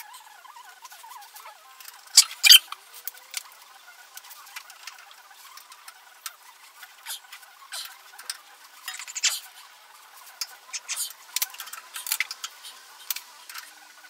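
Hand wrench clicking and clinking against metal in irregular bursts, loudest about two seconds in and again around nine seconds, as the bolts of a tractor's rollover protective structure are being retorqued.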